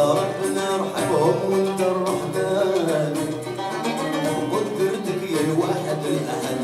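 A chaabi ensemble playing live: plucked ouds and mandoles with bowed violins, and a man's voice singing over them.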